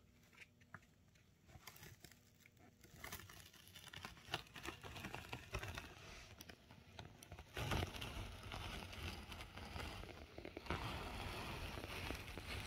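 Heat-pressed DTF transfer film being slowly peeled off a cotton t-shirt once it has cooled (a cold peel): a faint crackling and crinkling that starts after a few quiet seconds and grows louder about halfway through.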